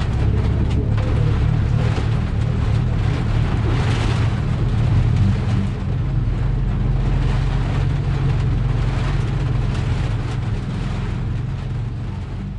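Honda Integra DC5's four-cylinder engine running steadily at low revs under a constant hiss of heavy rain and water spray; the sound begins to fade near the end.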